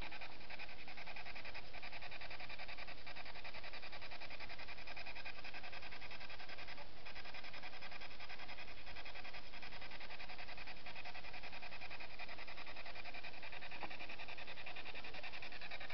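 Spirit box sweeping through radio stations: a steady hiss of static, finely and rapidly chopped.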